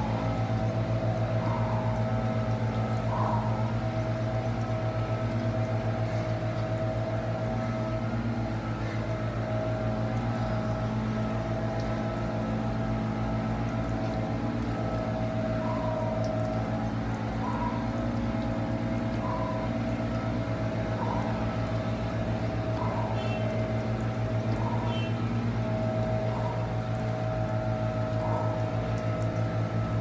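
A small motor running steadily, with a low hum, plus a faint short chirp every second or two.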